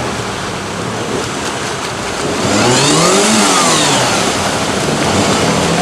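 Suzuki Samurai's engine running under load in the mud, revving up once about halfway through and falling back, over a steady rushing noise.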